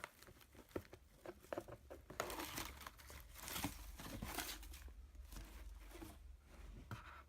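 Paper and plastic packaging crinkling and rustling in the hands as a boxed item is unwrapped, with irregular short handling clicks.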